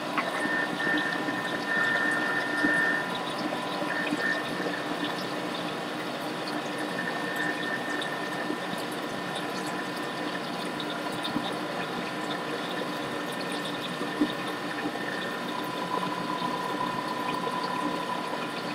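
Thermomix food processor running steadily at speed 5, its blade mixing a runny cream-and-vanilla cheesecake batter in the bowl.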